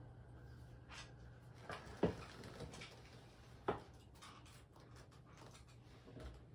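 Quiet room with a steady low hum, broken by two short, soft knocks about two and three-and-a-half seconds in, with faint rustling around them.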